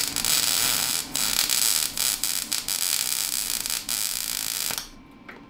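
Electric arc welding a tack weld on steel: a steady crackling hiss that breaks off briefly about a second in and cuts off near the end.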